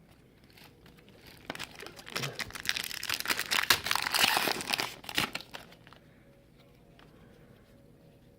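Trading card pack wrapper crinkling and tearing open, a dense crackle of handling that builds from about a second in, is loudest in the middle and stops after about five and a half seconds.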